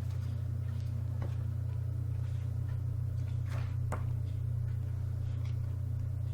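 A steady low hum, with a few faint short rustles and clicks of book pages being turned, about a second in and twice more around three and a half to four seconds in.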